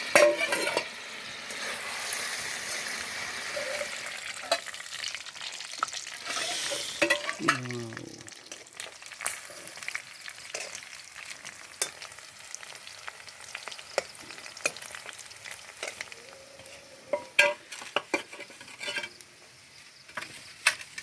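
Chicken frying and sizzling in an iron pan as its remaining water cooks off, stirred with a utensil that clicks and knocks against the pan. The sizzle is strongest in the first several seconds and then dies down, leaving mostly stirring knocks, with a brief falling squeak about eight seconds in.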